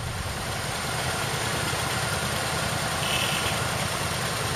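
Several motorcycle engines idling together, a steady running sound.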